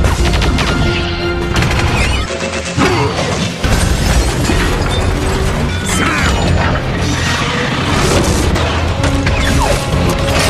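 Film battle soundtrack: a dramatic orchestral score mixed with booms, metallic clanks and crashes of giant robots fighting, with many sharp impacts.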